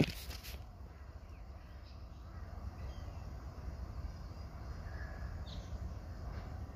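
A sharp knock right at the start as the phone is handled, then a steady low rumble from a container freight train in the distance, with a few faint bird chirps.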